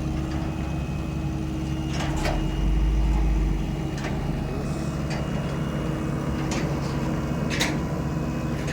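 Engine idling steadily at a constant speed, with several short, sharp squeaks or clanks over it.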